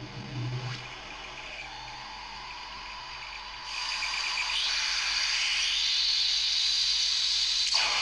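Homemade Muscarin analog noise synthesizer putting out hissing noise instead of pitched tones, its voltage-offset knob set for noise. About three and a half seconds in the hiss jumps louder and brighter, with a sweep rising in pitch, and it shifts abruptly again near the end as the knobs are turned.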